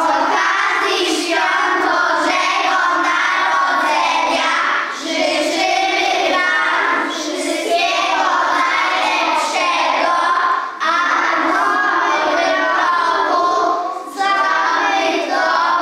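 A group of young children singing a song together, with brief pauses between phrases.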